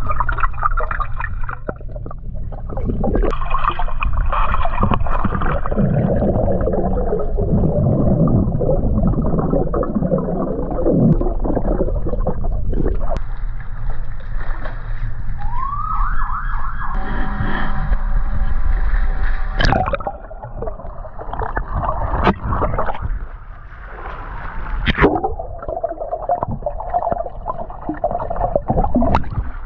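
Swimming underwater heard through a submerged microphone: a muffled rumble of moving water with gurgles and bubbles, broken by a few sharp clicks and knocks.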